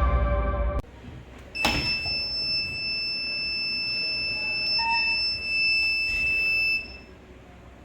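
Buzzer of a DIY door alarm circuit sounding one steady, high-pitched tone for about five seconds, starting with a click about a second and a half in and cutting off suddenly near the end: the alarm has been triggered.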